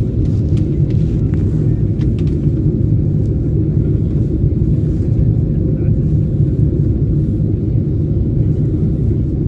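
Steady low rumble of cabin noise inside a Boeing 747-8 airliner during its landing, heard from a passenger seat.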